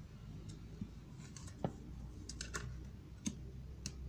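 Baralho cigano cards being drawn and laid down on stacks on a table: a handful of light, irregular clicks and taps of card on card, over a faint low hum.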